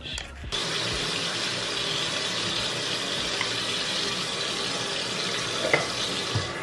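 Bathroom sink faucet turned on about half a second in, water running steadily into the basin, with one short clack near the end.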